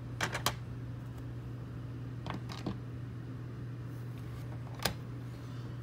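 Hard plastic PSA graded-card slabs clicking and tapping as they are set down and taken from a stack: a quick cluster of clicks near the start, two more a little after two seconds in, and one near the end, over a steady low hum.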